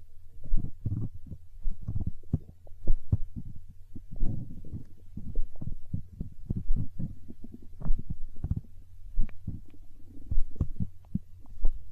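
Human stomach gurgling: a fast, irregular run of small low-pitched pops and squelches, over a steady low hum.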